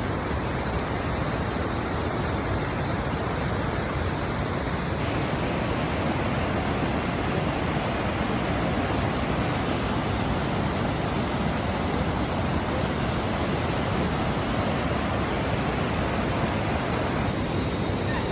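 Waterfall cascades: a steady, loud rush of falling water.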